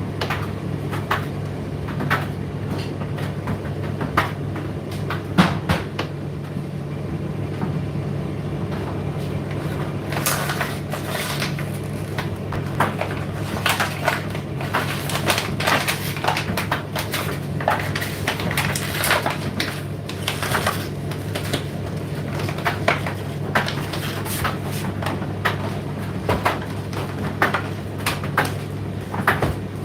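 Indesit IDC8T3 condenser tumble dryer running mid-cycle: a steady low hum from the motor and turning drum, with irregular clicks and knocks of the tumbling load, busier from about ten seconds in.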